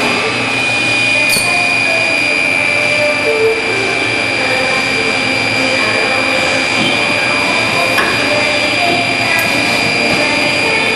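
Industrial machine for making 5-litre plastic containers running steadily, with a constant high-pitched whine over its mechanical noise and a few sharp clicks, about a second in and twice more near the end.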